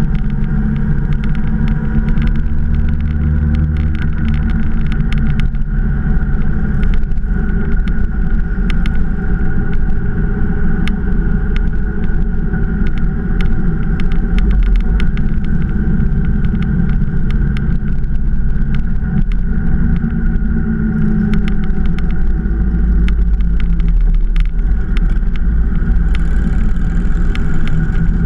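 Motorcycle engine running steadily at cruising speed, heard from the moving bike's onboard camera, with a heavy low rumble and many scattered clicks.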